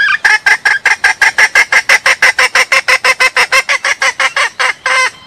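Junglefowl hen calling in a rapid run of short, loud clucking notes, about five or six a second, with a longer note near the end: the call of a hen in heat that draws a cock to her, used as a lure call.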